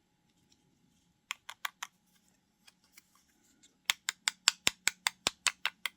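Light, sharp tapping of a hard craft tool at the worktable while silver is worked onto the collage. A quick group of four taps comes about a second in, then a fast run of about a dozen taps, roughly five a second, near the end.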